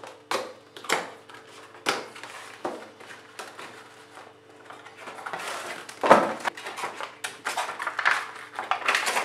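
Cardboard box and red plastic tray of a gaming mouse handled during unboxing: a few scattered clicks and taps as the box is opened, then from about halfway a longer stretch of cardboard and plastic rustling and scraping as the tray is slid out and the mouse lifted from it, with one sharp knock partway through.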